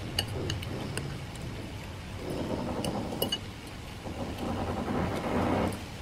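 Metal spoon and fork clinking against a ceramic noodle bowl: a few light clinks in the first second and a couple more about three seconds in. Under them runs a steady rushing hiss of rain, with a louder rush of noise near the end.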